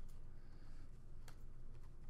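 Football trading cards being flipped through by hand, card edges snapping against the stack in a few sharp ticks with a soft slide of card on card between them, over a low steady hum.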